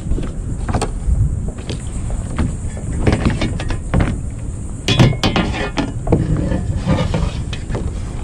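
Wind rumble on the microphone with scattered knocks, clicks and rattles from the fish in the landing net being handled against the plastic kayak, with a louder clatter about five seconds in.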